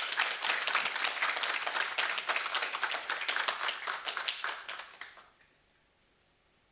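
Applause from a small audience: many separate hand claps that die away about five seconds in.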